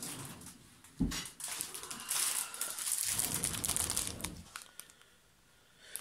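Crinkly packaging of a cross-stitch kit being handled and rustled, with a single knock about a second in. The crinkling dies away near the end.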